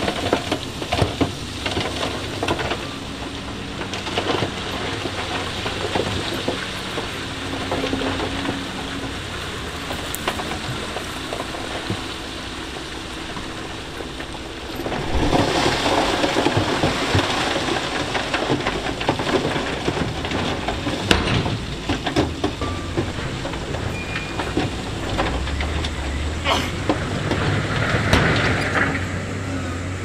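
Stone and gravel grinding and rattling as heavy machinery pushes rock, over a diesel engine running low. The rattling grows louder about halfway through.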